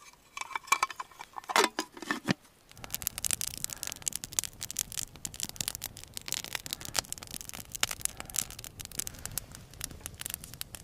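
A few clinks and knocks of a metal army mess tin and its lid being handled, then, from about three seconds in, a wood campfire crackling steadily with many small pops.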